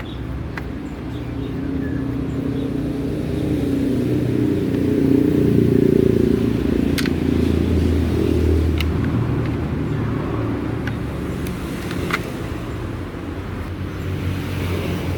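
A loud low rumble that swells toward the middle and eases off again, with a few sharp clicks.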